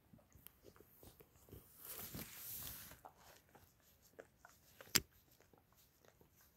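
Shiba Inu licking a person's bare feet: soft wet lapping clicks of the tongue on skin, with a brief rustling hiss about two seconds in and one sharp click about five seconds in.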